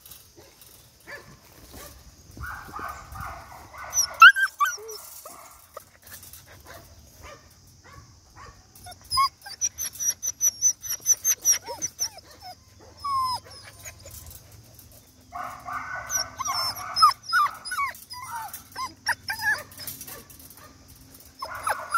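Belgian Malinois puppies whimpering and yipping in short cries as they scramble over each other in a wire crate, with many small clicks and rattles against the mesh.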